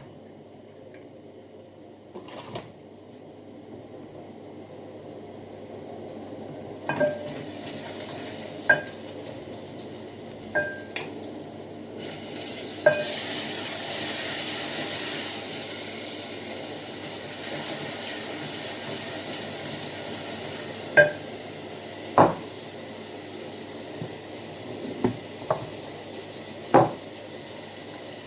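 Food sizzling in a pot while a metal spoon stirs it and knocks against the pot's rim about ten times, each knock ringing briefly. The sizzle grows louder about twelve seconds in.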